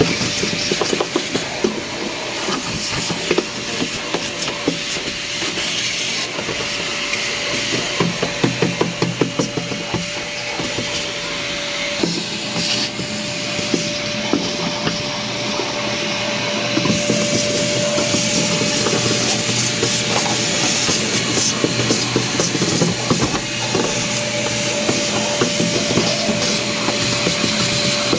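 Electrolux vacuum cleaner running and vacuuming: a steady rushing hiss over a constant motor whine, with a stretch of quick clicking and rattling in the first half, and the hiss changing character a couple of times as it goes.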